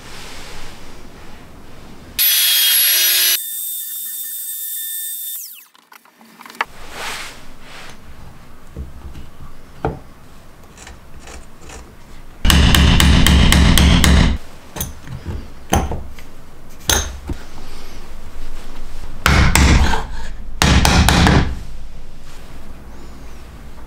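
Workshop tool noises on wood: a trim router runs for a few seconds and winds down, then come several loud bursts of rapid knocking and scraping as the metal wrench is worked into its routed recess in the wooden block.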